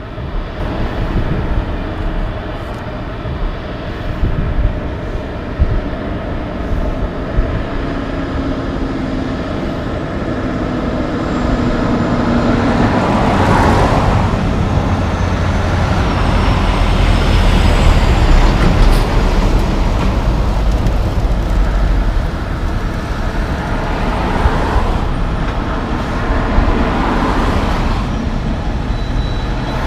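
Loaded logging trucks, a Kenworth and then a Western Star, driving past one after another: heavy diesel engines and tyre noise, swelling several times as each truck comes close.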